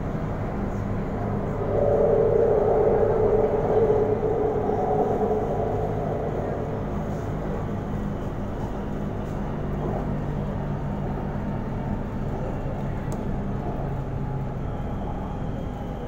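Inside an elevated BTS Skytrain car running along the viaduct: a steady rumble of wheels and motors with a low hum. It grows louder about two seconds in, then eases back to an even run.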